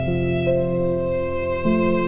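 Slow, gentle instrumental background music: a melody of long held notes that move every half second to a second over sustained chords.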